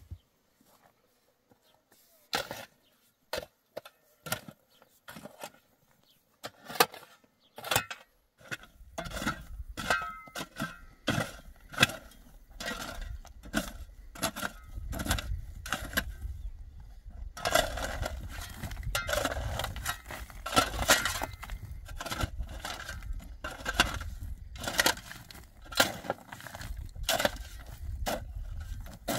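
Long steel digging bar jabbed again and again into rocky ground: sharp clinking strikes of metal on stone, a few at first and then coming about once or twice a second from around eight seconds in.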